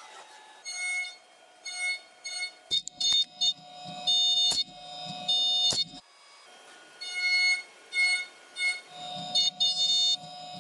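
5-axis CNC milling machine cutting a bracket: a high pitched cutter whine with many overtones that starts and stops repeatedly as the tool enters and leaves the material, with a few sharp clicks.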